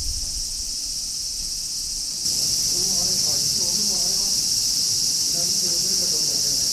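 Steady, high-pitched insect chorus, a shrill continuous drone that gets louder about two seconds in and then holds.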